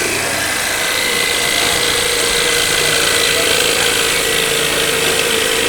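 Electric woodworking power tool running steadily at full speed, a loud even noise with a thin high whine.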